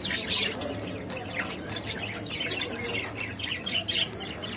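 Budgerigars chirping and squawking, with a burst of harsh calls in the first half-second followed by a run of short chirps.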